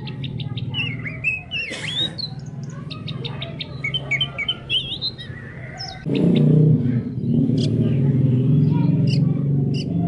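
Songbird chirping and whistling in short rising and falling phrases over a steady low croaking chorus of frogs, which grows louder about six seconds in.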